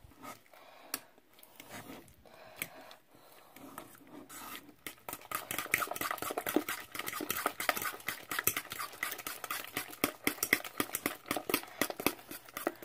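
A hand utensil mashing and beating banana and egg in a stainless steel mixing bowl: scattered taps and scrapes at first, then from about five seconds in a fast, steady run of clinks and scrapes against the metal bowl.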